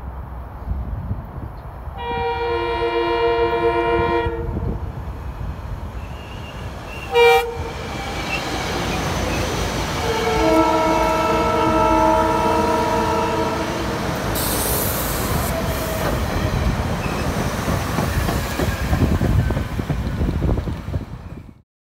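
SEPTA Silverliner IV electric multiple-unit commuter train approaching and passing. It sounds a long horn blast, then a short sharp toot, then another long blast, over the rising rumble and rush of the cars and wheels going by close at hand. The sound cuts off abruptly near the end.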